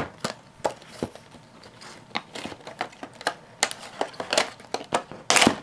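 Clear plastic packaging being handled and pulled open by hand: a scatter of crinkles and sharp clicks, with a louder crackling rustle near the end.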